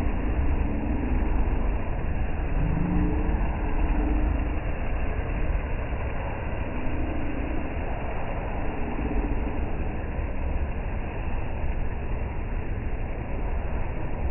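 Counter-rotating brush carpet-cleaning machine running steadily as it scrubs shampoo foam into a deep-pile rug: a continuous low motor rumble with the brushes churning.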